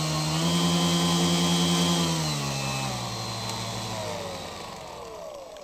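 Brushless electric motors (1800Kv) and propellers of a radio-controlled Canadair CL-415 model running with a steady buzz and a high whine, picking up slightly about half a second in, then winding down in pitch and level over the last three seconds until they nearly stop.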